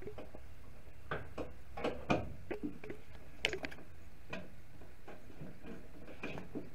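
Scattered light clicks and metallic knocks as a single-reservoir brake master cylinder for a 1966 Ford Mustang is handled and seated against the firewall at its mounting flange, the sharpest knock about two seconds in, over a steady low hum.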